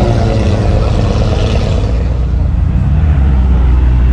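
A car engine running with a deep, steady rumble that grows stronger about three seconds in.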